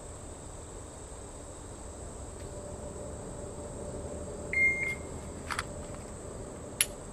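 A shot timer gives one short, high beep about four and a half seconds in. A few sharp clicks follow as the Glock 43 is drawn and its trigger snaps on an empty chamber: no round had been racked in, so the pistol does not fire.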